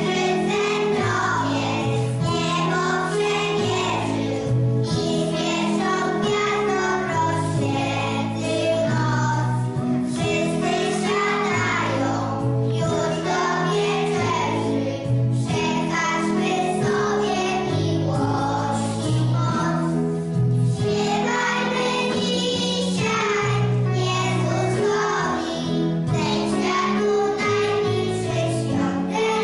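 A group of young children singing a Christmas carol together to a steady instrumental accompaniment.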